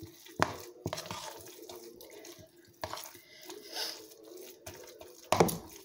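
Spoon scooping soft mashed-potato mixture out of a plastic bowl: wet scraping and squelching, with a few sharp knocks of the spoon, the loudest just before the end.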